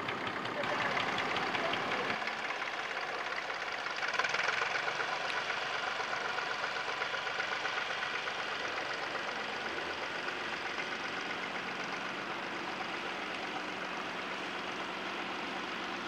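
Fordson tractor engine running steadily under load while pulling a mounted plough through the soil. The sound changes about two seconds in and swells briefly about four seconds in.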